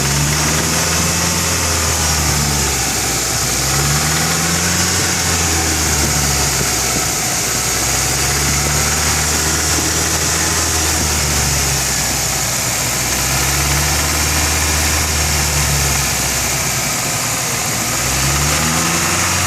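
Nissan CA18DET 1.8-litre turbocharged four-cylinder engine revved up and held several times, dropping back toward idle in between. The owner reports a strange knocking inside the engine between 2000 and 3000 rpm.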